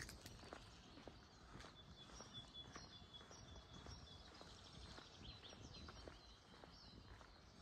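Faint birdsong: small songbirds chirping with short, repeated high notes and a few brief held whistles, over quiet outdoor ambience.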